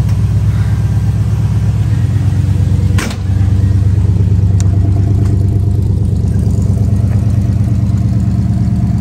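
1975 Chevrolet K10 pickup idling steadily through new glass pack mufflers, a loud, low, even exhaust note. A single sharp click comes about three seconds in.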